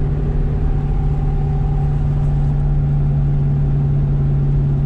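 Twin-turbo Saleen Mustang's V8 running at a steady speed, heard from inside the car as an even, unchanging drone.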